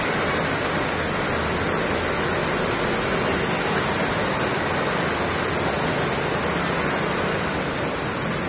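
Steady rush of heavy rain and vehicles driving through a flooded road, their tyres sloshing and churning through standing water.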